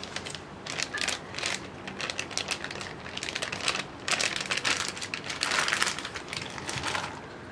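Thin plastic milk packet crinkling and crackling irregularly as a hand squeezes and crumples it to empty the milk into a pot.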